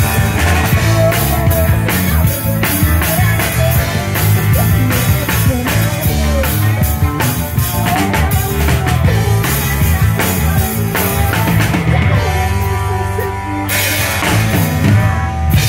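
Live rock band playing: drum kit, electric guitars and bass. Near the end the drums and cymbals drop out for about two seconds, then come back in.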